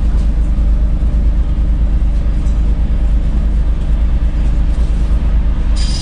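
Steady low rumble of a car idling in city traffic while stopped at a red light. Near the end, a hiss with high ringing tones starts up.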